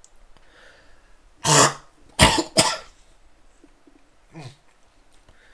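A man coughing and clearing his throat: three hard coughs close together about a second and a half in, then a fainter one later. He is trying to clear what he suspects may be a swallowed fly.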